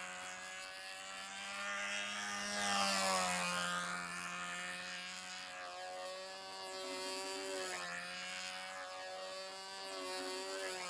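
Control-line stunt model airplane's engine and propeller running steadily in flight, a buzz that drifts up and down in pitch and loudness as the plane circles the pilot, loudest about three seconds in.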